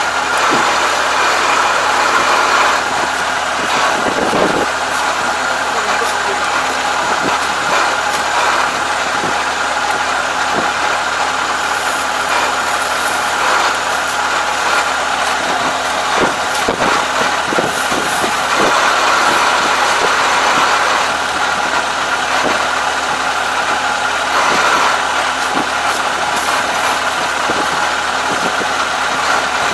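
Combine harvester engine running steadily at idle, with scattered rustles and clicks from straw being pulled by hand out of the machine.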